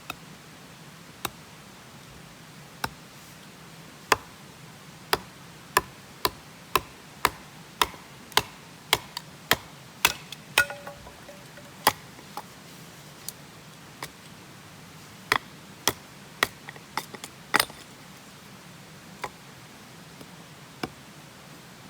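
Hatchet striking firewood to split it: a run of sharp knocks, sparse at first, about two a second in the middle, then spacing out again.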